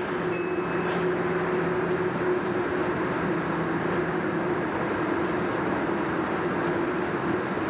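Passenger train running on the rails: a steady rumbling noise with a constant hum, and a short high tone sounding briefly just after the start.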